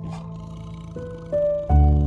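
Soft background music of held keyboard-like notes that step from one pitch to another, with a louder, fuller chord and deep bass coming in near the end.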